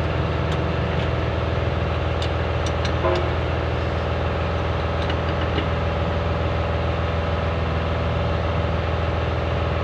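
Heavy truck diesel engine idling steadily, with a few faint light clicks in the first three seconds.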